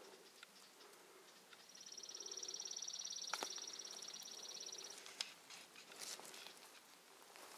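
An animal's high, fast trill, lasting about three seconds and starting a couple of seconds in, with faint scattered ticks around it.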